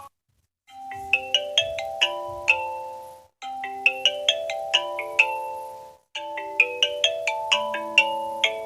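Samsung Galaxy S8 ringtone starting after a short silence about a second in. It plays a short melody of quick, bright notes over held lower notes, and the phrase loops about every two and a half seconds.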